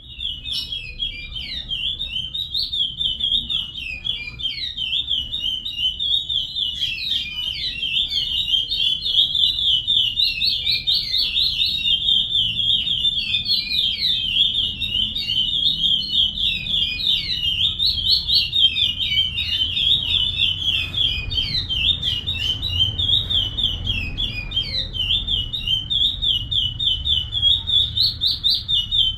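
Chestnut-bellied seed finch (curió) singing the Paracambi song type: a long, unbroken run of fast, high whistled notes.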